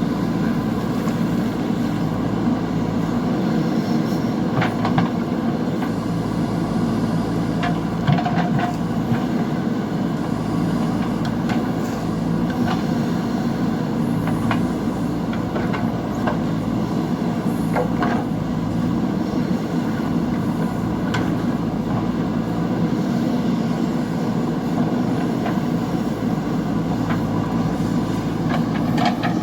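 JCB backhoe loader's diesel engine running steadily under working load, with several sharp knocks scattered through it.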